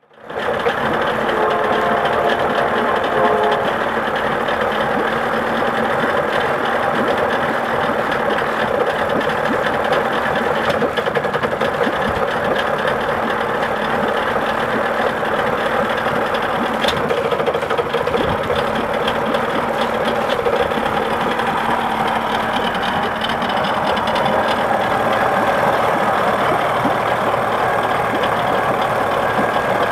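1979 Johnson 55 two-cylinder two-stroke outboard motor idling roughly. It runs steadily throughout, the rough idle being the fault the owner is showing.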